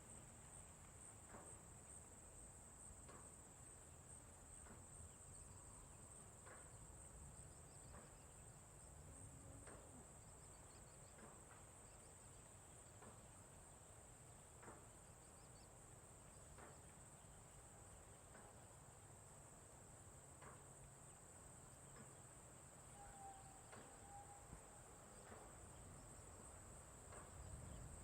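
Faint rural ambience dominated by a steady, high-pitched chorus of crickets, with a low rumble underneath and scattered faint clicks. A short whistled note, like a distant bird, sounds once about two-thirds of the way through.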